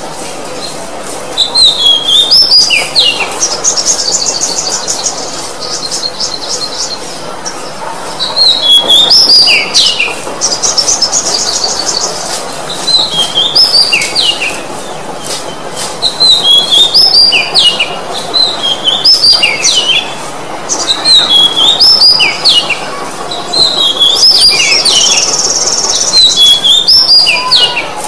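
Oriental magpie-robin singing loudly: phrases of quick whistled notes that slide up and down, repeated every few seconds, with three bouts of fast, high rattling trills.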